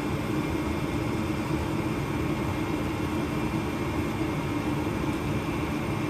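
Goodman gas furnace running with a steady hum and one faint steady tone, during its ignition sequence while the newly installed igniter heats up before the burners light.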